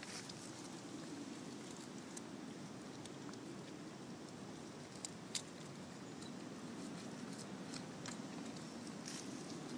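A dog grazing on dog's mercury: scattered small clicks and rustles as leaves are bitten off and chewed, over a faint steady background noise.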